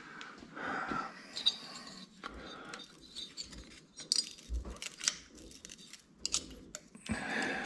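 Light metallic clinks, taps and small rattles of hand tools and engine parts being handled while the pushrod tubes are worked off a Harley-Davidson Twin Cam engine.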